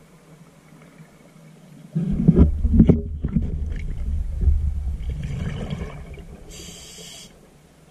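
Scuba diver breathing through a regulator underwater. About two seconds in, an exhalation sends out a loud rumbling, crackling rush of bubbles that fades over about four seconds. Near the end comes a short hissing inhalation through the regulator.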